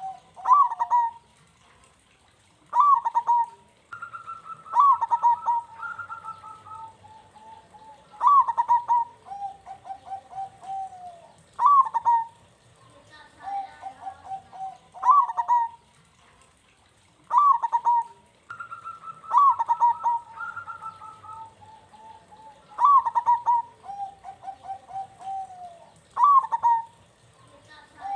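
Zebra doves cooing in repeated phrases, one about every three to four seconds: a sharp rising-and-falling note followed by rolling, slightly falling coos.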